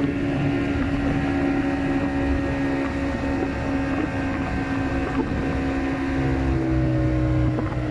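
Boat's outboard motor running steadily at cruising speed, a constant engine drone over a low rush of wind and water. A lower engine note joins about six seconds in.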